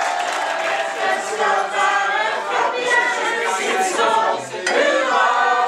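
A crowd of people singing together, many voices at once.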